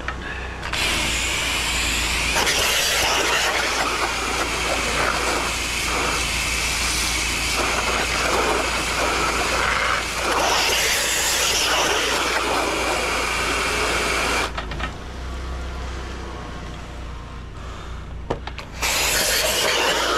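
An 8 gpm pressure washer's wand spraying a hissing jet of water into a roof gutter. The spray cuts off about two-thirds of the way through, leaving a low steady hum, and starts again a few seconds later.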